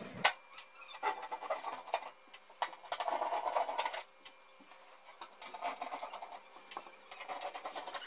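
Screwdriver working the screws of a washing machine's plastic back panel: scattered light clicks and scraping, busiest in the first half and sparser after.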